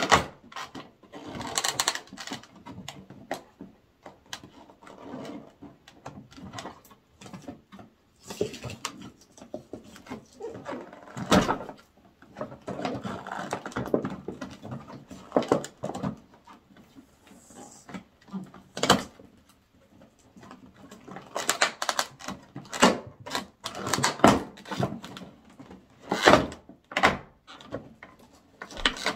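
Thin clear plastic blister packaging crackling and crinkling as it is pried apart and pulled off by hand, in irregular bursts with sharp snaps and scrapes.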